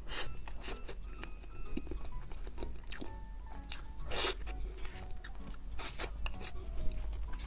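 Close mouth sounds of eating soft matcha cream cake from a spoon: a series of sharp smacks and clicks, the loudest about four and six seconds in. Light background music runs under them.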